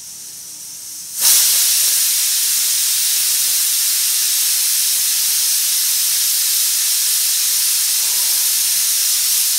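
Aluminium stovetop pressure cooker letting off its whistle: steam rushes out through the weight valve in a loud, steady hiss. It starts softer and jumps to full force about a second in. The whistle is the sign that the cooker has reached pressure, one of the two whistles counted to cook the potatoes through.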